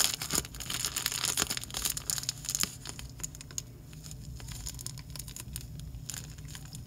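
Clear zip-top plastic bag crinkling and crackling as hands squeeze shaving foam out of it into a bowl. The crinkling is dense and loudest for the first couple of seconds, then thins to scattered soft crackles.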